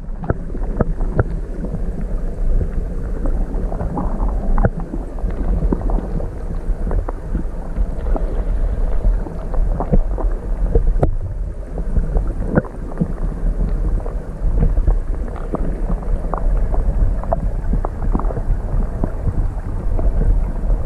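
Muffled rush of stream water heard by a camera held underwater: a steady low rumble with many small clicks and ticks scattered through it.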